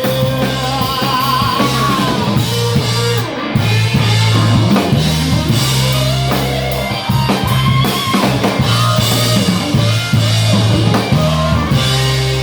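Live country-rock band playing an instrumental break between verses, with no singing. Drum kit and bass keep the beat under a lead guitar line of sliding, bending notes.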